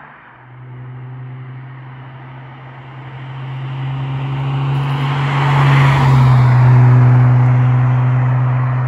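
BMW E46 325i's M54B25 straight-six, fitted with Schmiedmann headers and an RM Motors rear muffler, driving past at a steady cruise: a steady low exhaust drone. Tyre and road noise swell as the car comes closer and passes, loudest about six to seven seconds in.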